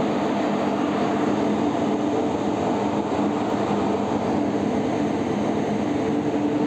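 Steady drone of a cargo ship's machinery under way, heard on open deck: a constant rushing noise with a low, even hum that does not change.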